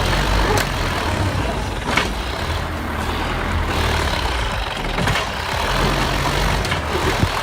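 A heavy vehicle's engine running steadily, a low drone with noise over it and a few sharp knocks.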